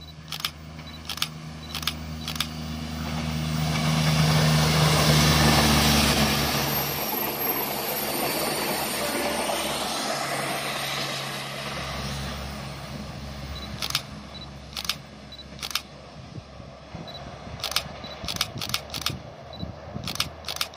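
A diesel multiple unit (KRD railcar set) passing: its diesel engine drone builds to a peak about five seconds in, then the rumble of the train fades as it moves away. A series of sharp clicks comes near the start and again near the end.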